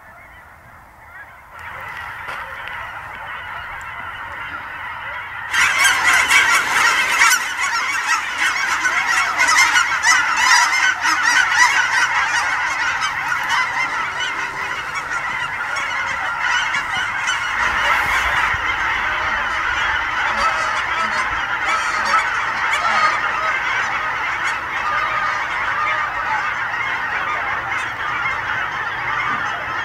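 A large flock of Canada geese honking in a dense, continuous chorus. It starts fainter and grows abruptly louder about five seconds in.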